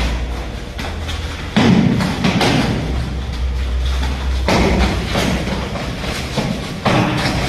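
Repeated thuds of full-contact karate sparring: kicks and punches landing on bodies and gloves, and feet hitting the foam mats. The loudest comes about one and a half seconds in, with another sharp one near the end.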